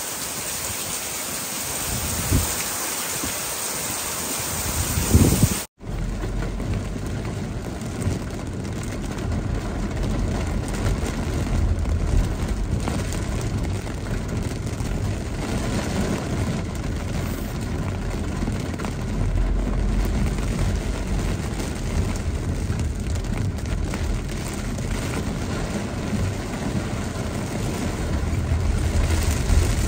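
Heavy rain pouring steadily in a thunderstorm, with wind gusting on the microphone. About six seconds in it cuts to the inside of a car driving through the downpour: rain hitting the car, tyres on the wet road and the car running.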